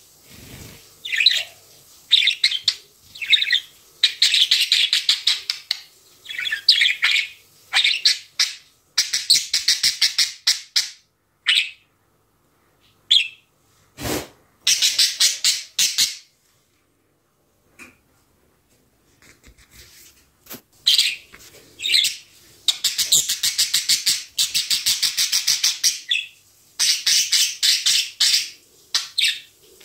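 Budgerigar warbling and chattering in bursts of rapid, scratchy chirps, with a pause of a few seconds about halfway through. A single short knock comes about halfway.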